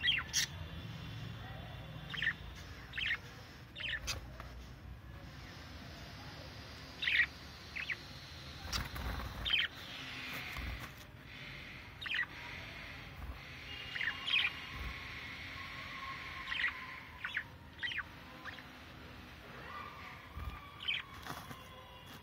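Budgerigars chirping in short, separate calls, several every few seconds, over a faint steady hiss.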